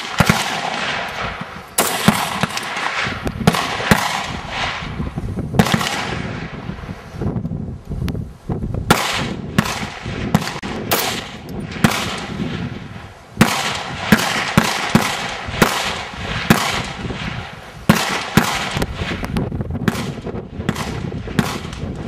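Rifle gunfire: many sharp shots at irregular spacing, often a second or less apart, each trailing off in an echo.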